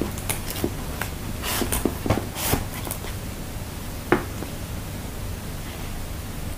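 Handling noise from a cardboard box and clear plastic packaging tray as a tablet is taken out and held up: scattered rustles and light clicks, with one sharper click about four seconds in.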